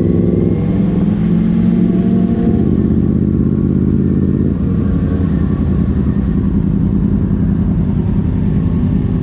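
Motorcycle engine running at low road speed, heard from the rider's seat, with another motorcycle close ahead. Its even engine note breaks up into a rougher sound about halfway through as the bike slows.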